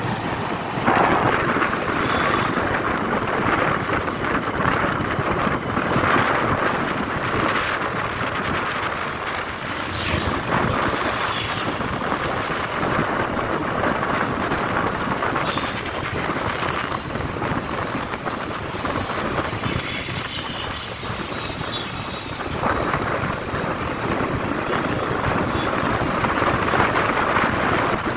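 Steady rushing road and wind noise of a motorcycle ride, with wind on the microphone and the noise of vehicles on the road.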